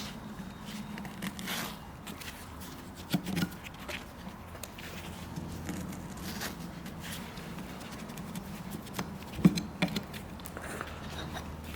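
Scattered scrapes, clicks and knocks from work on a horse's hoof, over a steady low hum. The sharpest knock comes about nine and a half seconds in.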